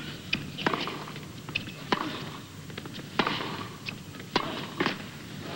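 Tennis rally: the ball is struck back and forth by rackets, giving a sharp hit about every second and a quarter, with fainter knocks between.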